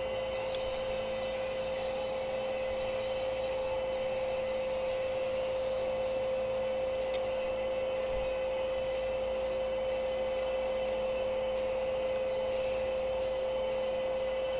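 A steady hum on a single tone, with a faint even hiss beneath it.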